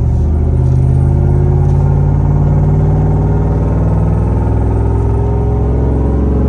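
Ford F-150's 5.4-litre Triton V8 running smoothly on the road, heard from inside the cab together with road rumble. Its hum rises slowly in pitch as the truck gently gathers speed.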